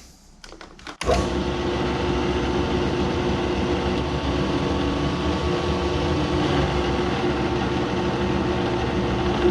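Drill press switched on about a second in, its motor starting suddenly and then running at a steady speed of about 1200 RPM with a constant hum.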